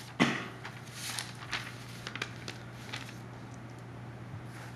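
Room tone in a meeting chamber: a steady low electrical or ventilation hum, with one short sharp sound about a quarter second in and scattered light clicks and rustles after it.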